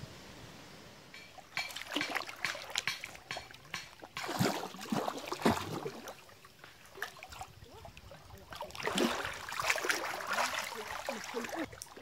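Creek water splashing and sloshing around a person wading and swimming, in three bouts.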